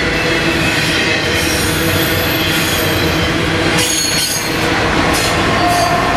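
A long double-stack intermodal freight train passing close by, with a steady rumble and clatter of wheels on rail and a brief high wheel squeal about four seconds in. Near the end the mid-train distributed-power GE ET44AC locomotive passes, adding a steady engine tone.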